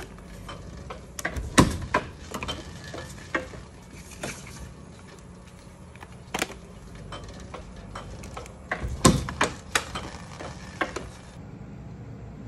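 Stiff printed paper cards being handled and laid one by one onto a stack on a wooden workbench: irregular light paper taps and clicks, with two sharper knocks about a second and a half in and about nine seconds in. A steady low hum runs underneath.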